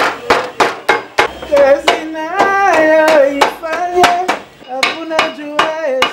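A hammer striking a sheet-metal panel in steady blows, about three a second, while a man sings a slow tune over the hammering from about a second and a half in.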